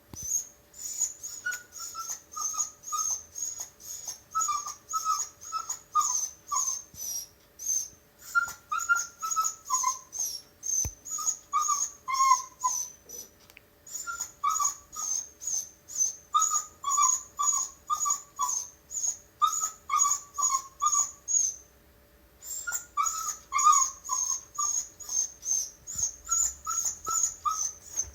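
Beagle whimpering and whining nonstop, a rapid string of short high-pitched whines, about three a second, with runs of falling lower cries, stopping briefly three times. The dog is crying out of loneliness after the family has gone to bed.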